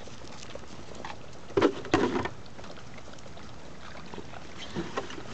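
Puppies eating off the ground: chewing and scuffling through dry leaves and grass, with a few short, louder rustles about one and a half to two seconds in.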